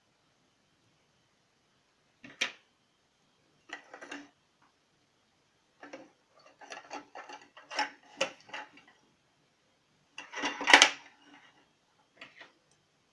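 Scattered light clicks, taps and rustles of small fishing tools and scissors being handled and set down on a wooden tabletop, with a louder clatter about eleven seconds in.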